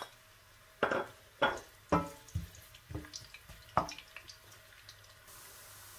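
Wooden spatula scraping chopped red onion off a plate into a pot of warm oil: a series of about six soft knocks and plops in the first four seconds.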